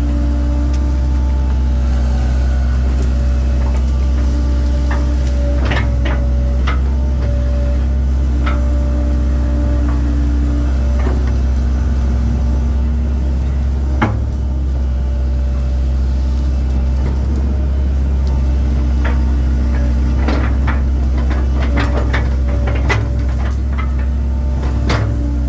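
1997 Link-Belt 2700 excavator's diesel engine running steadily, with scattered sharp knocks and clanks from the machine at work, clustering near the middle and toward the end, and one distinct knock about halfway through.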